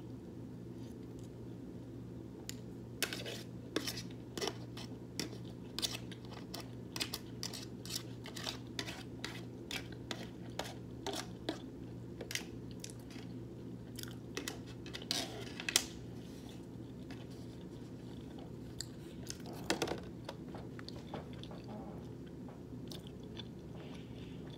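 A person chewing a mouthful of burrito: many quick, wet mouth clicks and smacks, thickest from a few seconds in until past the middle, with another short flurry near the end. A steady low hum runs underneath.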